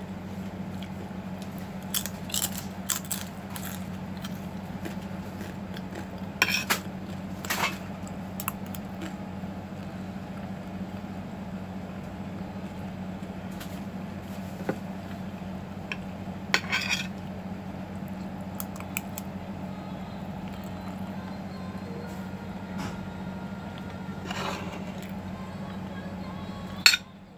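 Metal spoon and fork clinking and scraping against a plate now and then during eating, with a sharper clink near the end, over a steady low hum.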